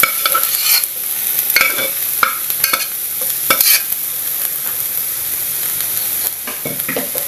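Cooked pineapple pieces sizzling in a hot nonstick pan, with a metal spoon scraping and tapping against the pan as they are stirred: a run of quick strokes in the first few seconds and a few more near the end.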